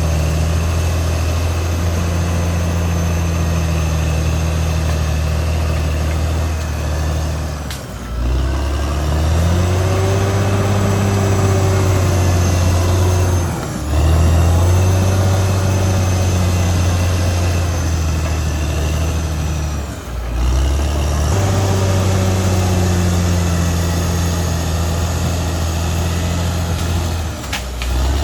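Diesel engine of a Caterpillar D6R XL crawler bulldozer running steadily under work with a deep hum. The sound drops away briefly four times, roughly every six seconds.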